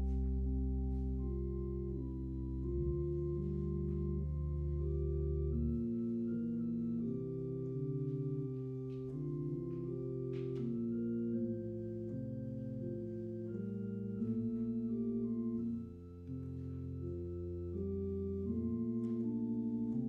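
Organ playing slow music in long held chords, with a deep bass note sounding under the first few seconds and again briefly later on.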